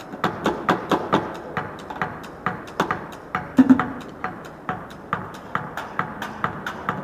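Improvised drum kit of plastic buckets and tubs struck with drumsticks, a quick steady beat of sharp hits, about three to four a second. A little past halfway comes one louder, deeper hit.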